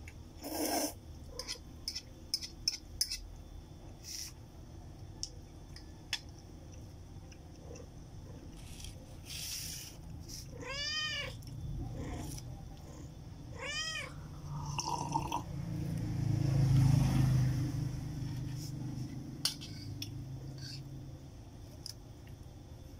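A domestic cat meowing twice, about three seconds apart, each call rising then falling in pitch. Light clicks of utensils on a bowl come in the first few seconds, and a low rumble swells and fades a little after the second meow, the loudest sound here.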